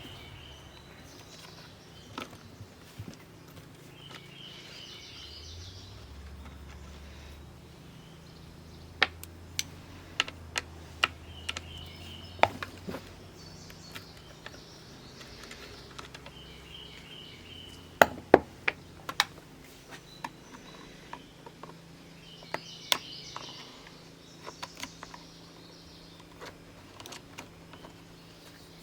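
Scattered sharp clicks and clanks of a wrench and loose chainsaw parts (bar nuts, side cover, bar and chain) being handled on a bench, with faint bird chirps now and then behind them.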